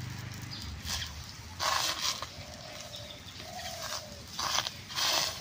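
Fingers pressing and spreading thick lentil-and-rice batter across an iron kadai, heard as a few short wet patting bursts.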